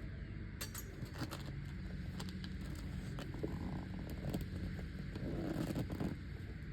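A cut-open soccer ball being ripped apart by hand: scraping, crackling tearing of the cover and lining with scattered clicks, over a steady low hum.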